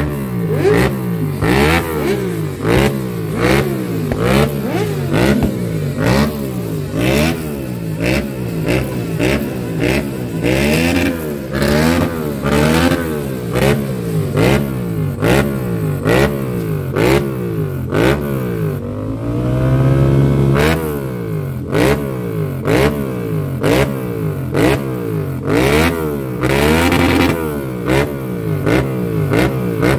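Motorcycle engines revving in repeated quick throttle blips, the pitch rising and falling about twice a second, with one longer rev rising and falling about two-thirds of the way through.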